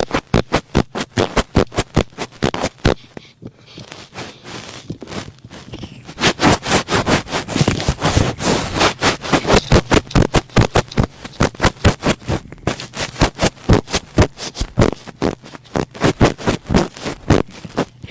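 Thick cotton swab rubbed and pressed against a microphone in quick, repeated scratchy strokes, about four a second, easing off briefly about three seconds in and then running more densely.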